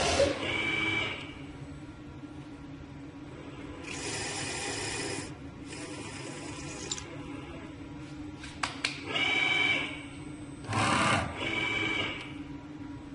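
Homemade three-head CNC milling machine running a G-code program: its axis drives whine in bursts of about a second as the heads move, over a steady low hum, with two sharp clicks a little past the middle.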